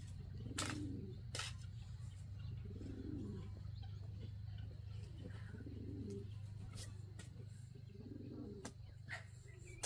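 Pigeons cooing: a low coo about every two to three seconds, with a few sharp clicks in between and a steady low hum beneath.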